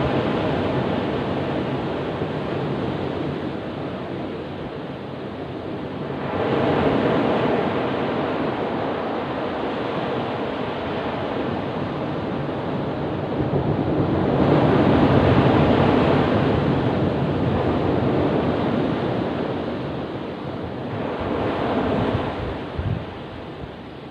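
Ocean surf: waves breaking and washing up a beach in slow surges, swelling about six seconds in, again around fifteen seconds, and briefly near the end.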